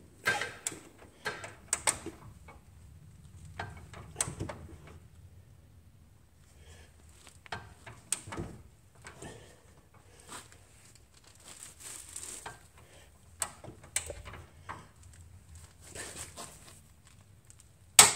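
Scattered light clicks and knocks of a wrench and socket being worked on suspension bolts, then one sharp, loud click near the end: a click-type torque wrench breaking at the 150 foot-pound setting.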